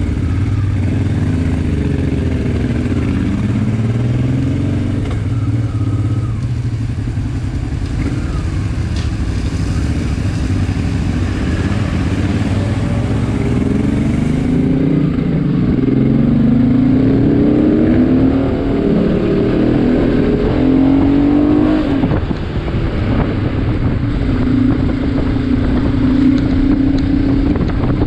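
Motorcycle engine under way, its pitch rising and falling as the rider slows and accelerates through the gears, with several rising pulls in a row in the second half, over a constant rumble of road and wind noise. Near the end it holds a steady pitch at an even cruise.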